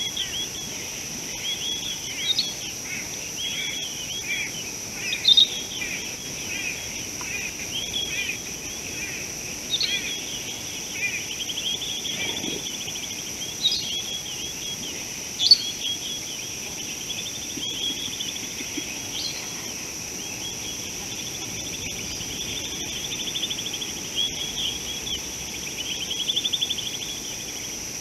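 Birds chirping and warbling in short, repeated phrases throughout, with a few sharper, louder calls, over a steady high-pitched insect drone.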